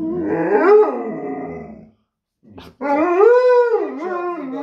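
Alaskan malamute 'talking': wavering, howl-like vocalising that rises and falls in pitch. It breaks off briefly about two seconds in, then comes back as a louder drawn-out howl that rises and falls.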